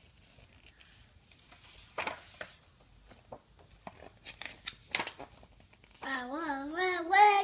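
Pages of a paper picture book rustling and flipping, with a few light taps and clicks. About six seconds in, a toddler starts singing in a high, wavering voice, louder than the page sounds.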